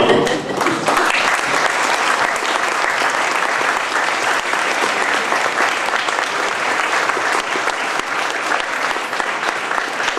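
An audience applauding steadily: many hands clapping, swelling up within the first second and then holding even.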